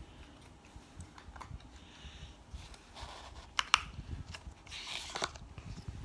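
Handling noise: scattered light clicks, taps and brief rustles of objects being moved about on a desk, with a quick pair of sharp clicks a little past the middle.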